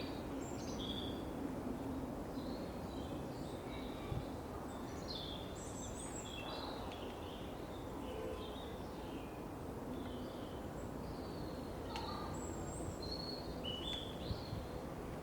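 Cemetery ambience: several small birds chirping and calling, short notes scattered throughout, over a steady low background rumble, with one brief click about twelve seconds in.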